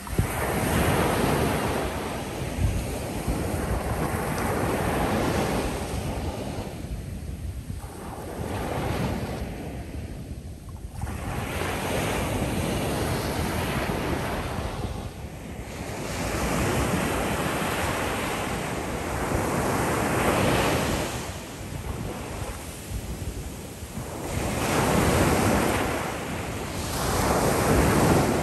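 Ocean surf breaking and washing up the shore, the noise swelling and falling back in waves every few seconds.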